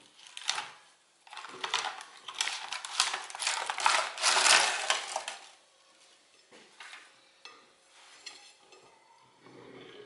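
Clear plastic film crinkling and rustling as it is peeled away from the side of a mousse cake, in a run of crackly bursts over the first five seconds or so. After that, only a few faint knocks.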